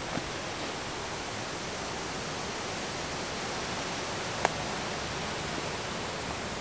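Campfire of coals and small flames under a wire grill, hissing steadily, with one sharp crackling pop about four and a half seconds in.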